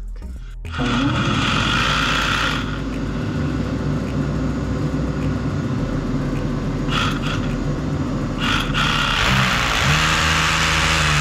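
Electric power-tool motor spinning up about a second in and running continuously under load, its pitch settling lower near the end.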